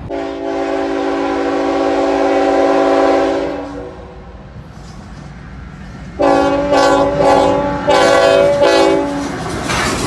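CSX diesel freight locomotive air horn sounding a multi-note chord: one long blast of about three and a half seconds, then after a few seconds' pause a series of shorter blasts with brief breaks as the locomotive passes close.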